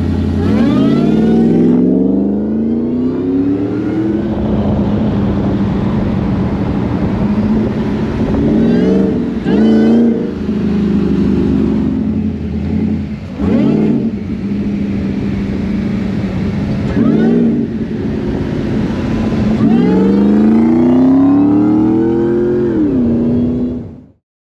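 Supercharged 5.4-litre V8 of a 2004 Ford F-150 Lightning, cammed and with a ported supercharger, revving repeatedly from a steady idle, with a long climb in pitch near the end before it cuts off suddenly.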